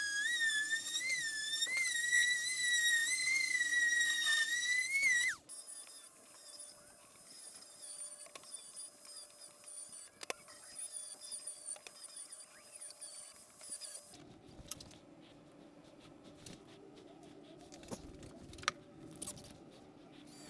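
A small electric power tool's motor at a high whine that wavers in pitch as it works, cutting off about five seconds in. A fainter steady whine follows, and from about fourteen seconds on there is light clicking and rattling.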